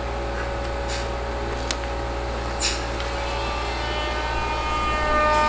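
Steady low mechanical hum with a faint steady tone through it and a couple of light clicks; near the end a higher, several-toned drone comes in.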